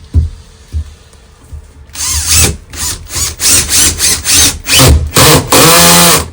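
Power drill run in a series of short trigger bursts, its motor pitch rising and falling. The last burst is the longest and cuts off suddenly near the end. A few light knocks come first.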